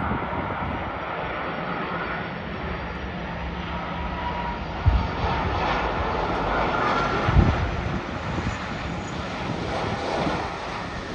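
Airbus A330-343 airliner with Rolls-Royce Trent 700 engines passing low on final approach at approach power: a steady jet engine noise with a faint whine. Two brief low thumps about five and seven and a half seconds in.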